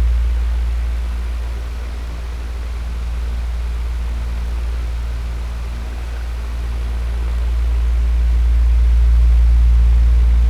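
Electric fan running: a steady low hum under an even airy hiss. The level dips a couple of seconds in and swells again near the end.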